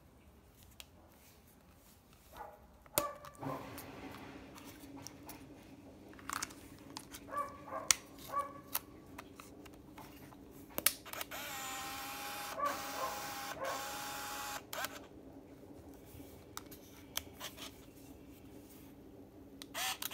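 Olympus mju-II 35mm compact film camera being handled: scattered clicks of its plastic body and back door, then its built-in motor whirs for about four seconds in the middle, with a shorter motor whir again near the end.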